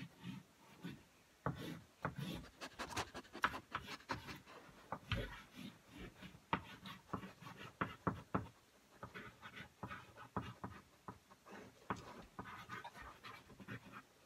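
Chalk scratching and tapping on a small chalkboard in many short, irregular strokes as a picture is drawn, with a dog panting softly.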